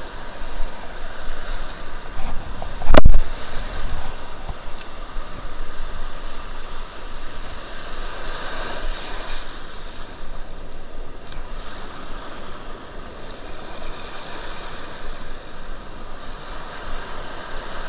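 Surf washing up the beach in steady swells, with low wind rumble on the microphone. A single loud thump about three seconds in is the loudest sound.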